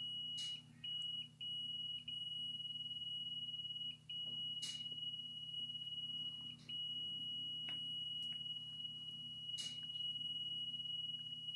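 Continuity tester's steady high beep across a wire, cutting out briefly about five times as the wire is moved, with a few faint handling clicks: an intermittent break in the wire.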